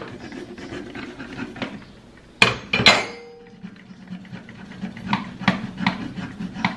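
Glass French press plunger pumped up and down to froth milk, clicking rhythmically in its lid at two to three strokes a second, with two loud metallic knocks and a brief ring about two and a half seconds in.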